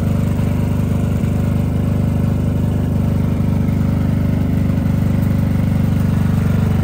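Soundproof-canopy 5 kW diesel generator running at a constant speed, a low, even engine hum.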